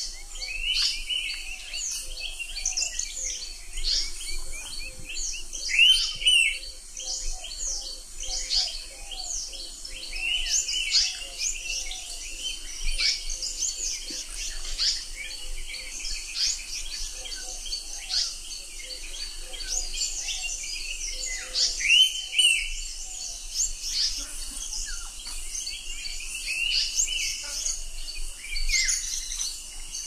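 A chorus of many small birds chirping and twittering over one another without pause, with fainter lower notes repeating underneath. The busiest, loudest bursts come about six seconds in and again about twenty-two seconds in.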